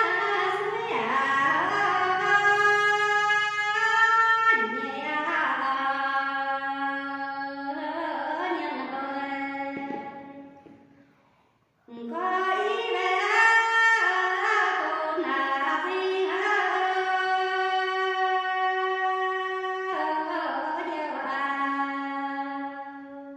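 A woman singing a Red Dao hát lượn folk song as a solo voice, in long held notes that slide into pitch. One phrase fades out about ten seconds in, and after a brief silence the next begins, fading again near the end.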